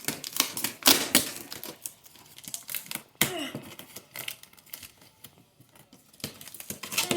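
A cardboard shipping box being opened by hand: irregular clattering, scraping and crinkling of cardboard and packing tape as the taped flaps are worked at.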